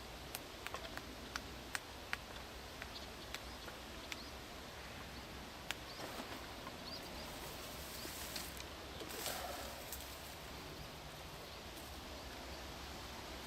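Quiet outdoor ambience with faint bird chirps. A run of sharp clicks comes in the first few seconds, and a brief rustling swish about nine seconds in.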